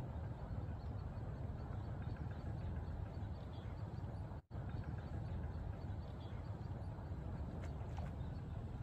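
Steady low rumble of wind buffeting the microphone outdoors, with a faint, rapid, even chirping high in the background. The sound cuts out for an instant about halfway through.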